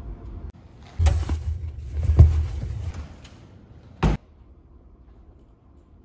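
Locker door being handled: knocks and rattling about a second in and again around two seconds, then one short sharp slam shut at about four seconds.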